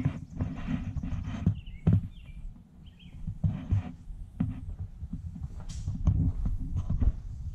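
Handling rumble from a handheld camera being carried around, with footsteps and a few sharp knocks.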